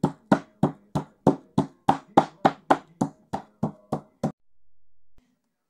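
Wooden meat mallet pounding chicken breast through cling film on a cutting board: steady, evenly spaced blows about three a second, stopping about four seconds in.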